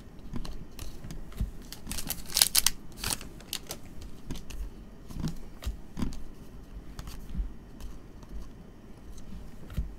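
Glossy trading cards flipped through by hand, the card stock sliding and snapping against one another in irregular soft clicks, with a denser, louder run of clicks about two and a half seconds in.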